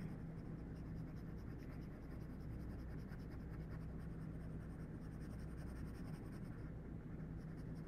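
Pencil shading on a paper worksheet: rapid, even back-and-forth scratching strokes as a cube face is filled in, pressed hard at the dark edge and eased lighter.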